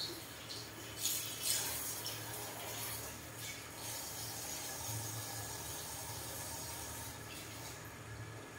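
Water from a handheld shower sprayer running over wet hair and into a shampoo basin, splashing most about one to two seconds in, then a steady running hiss that eases slightly near the end.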